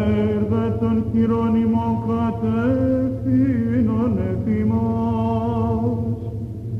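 Byzantine chant from the Orthodox Holy Week Bridegroom service: a male cantor sings a slow, melismatic line of long held and gliding notes over a steady low drone (the ison). The phrase breaks off just before the end, and the voice comes back in straight after. It is an old recording with a dull top end.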